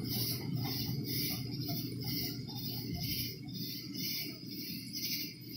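A chorus of crickets and other night insects calling in even pulses about twice a second, over the steady rushing and bubbling of hot tub jets.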